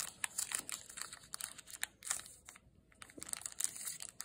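Foil wrapper of a Pokémon Astral Radiance booster pack crinkling and tearing as it is opened and the cards are slid out: a dense run of short crackles with a brief lull about halfway through.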